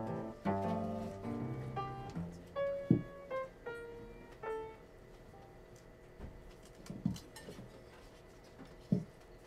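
Live cello and accordion accompaniment playing a run of separate notes that dies away about halfway through, followed by a few isolated low notes.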